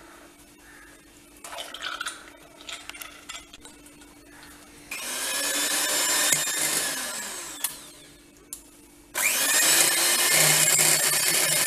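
Electric kitchen mixer whipping cream, run twice. The first run starts about five seconds in and winds down after about three seconds. The second starts again about a second later. Before the motor starts there are light clinks of utensils.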